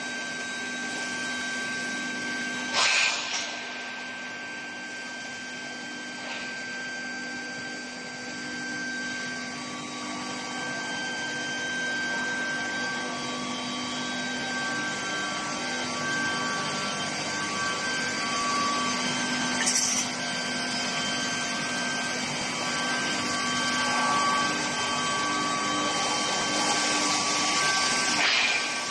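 Steel pipe induction heating and hot rolling line running: a steady industrial drone with several steady whining tones, broken by short hisses about three seconds in, around the middle and near the end.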